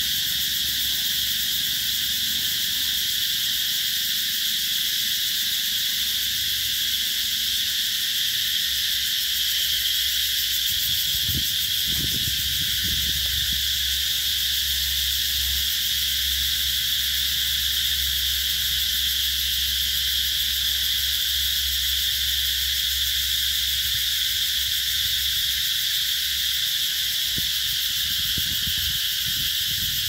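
Chorus of cicadas shrilling, a steady high-pitched drone without a break.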